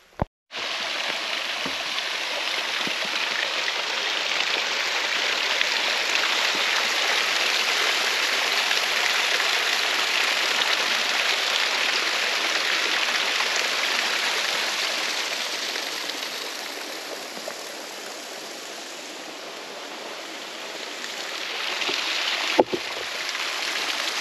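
Mountain stream rushing as a steady hiss of flowing water; it grows fainter for a few seconds past the middle and swells again near the end, with one short click near the end.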